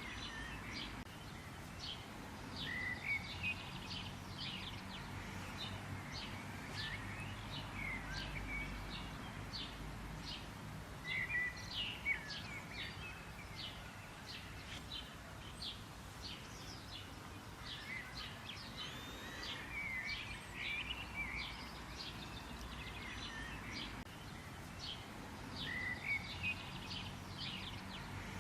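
A chorus of birds chirping: quick, short, high chirps throughout, with a curved call phrase recurring every few seconds, over a low steady background rumble.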